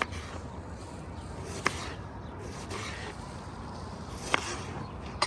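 Three sharp clicks or knocks, a couple of seconds apart, over a steady background hiss, with some brief rustling between them.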